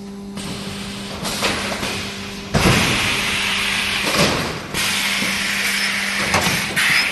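EPS 3D panel welding machine running: a steady electrical hum, then, about two and a half seconds in, a knock followed by loud hissing, with further knocks about every two seconds as the hissing goes on and breaks off near the end.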